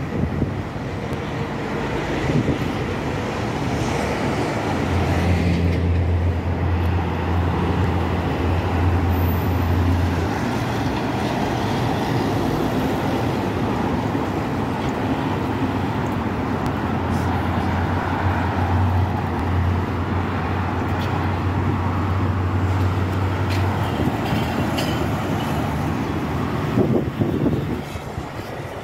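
Steady road traffic noise with the low hum of heavy engines, strongest from about five to ten seconds in and again from about seventeen to twenty-four seconds in.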